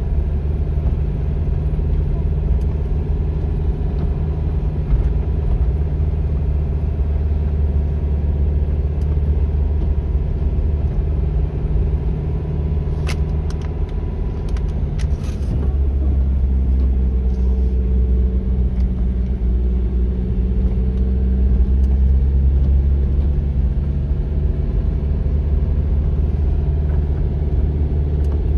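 A car driving: a steady low engine and road rumble. The engine note changes about halfway through, and a few sharp clicks come just before the change.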